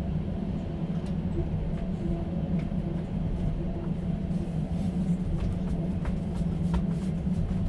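Interior of a moving passenger train's open-plan sleeper car: a steady low rumble and drone from the running train, with faint scattered clicks and rattles.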